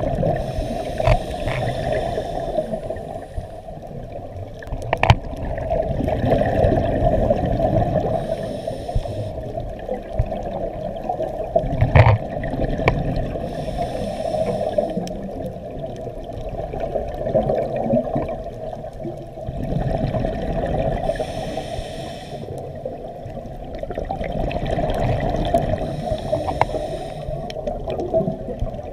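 Scuba regulator breathing heard underwater through a GoPro's housing: a hissing inhale about every five or six seconds, each followed by a long bubbling exhale, with a few sharp clicks.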